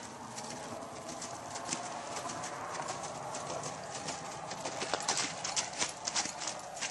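Quarter Horse gelding's hoofbeats on snow-covered ground as it is ridden at a lope, a run of soft repeated strikes that grows louder from about the middle of the stretch.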